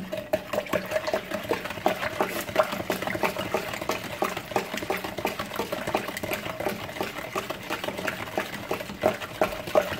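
Long metal spoon stirring lemonade in a plastic pitcher: a steady run of quick clicks and knocks as the spoon hits the pitcher's sides, with the liquid swishing.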